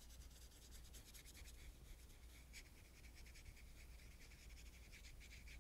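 Very faint, scratchy strokes of a paintbrush grazing paint across a small painting, many short strokes in a row over a low room hum.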